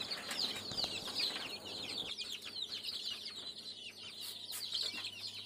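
A large flock of ten-day-old chicks peeping: many short, high, downward-sliding peeps overlapping in a continuous chorus.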